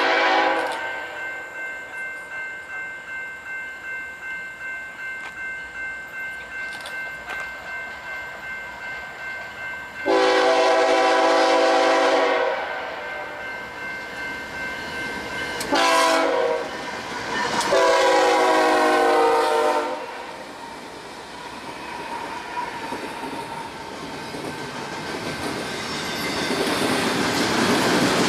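BNSF ES44DC diesel locomotive's air horn: the end of one long blast, then long, short, long, the grade-crossing signal, sounded as the train approaches. Between the first two blasts a bell rings about twice a second. Near the end the rumble and clatter of the passing double-stack container train grows louder.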